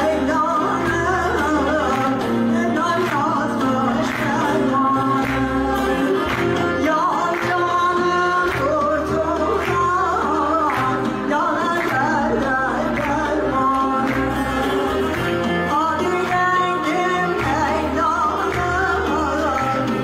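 A Turkish folk song performed live: a woman sings the melody over an ensemble of bağlamas (long-necked plucked lutes), with steady bass notes underneath.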